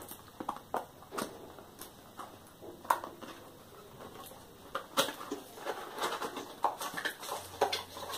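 Hands handling and opening a small cardboard box that holds a power supply: irregular taps, clicks and scrapes of card, with rustling that grows busier in the second half.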